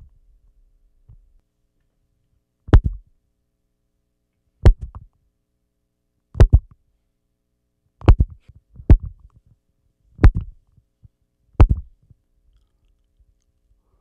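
Loud thumps on a microphone, seven sharp knocks at irregular intervals, each a short, low thud.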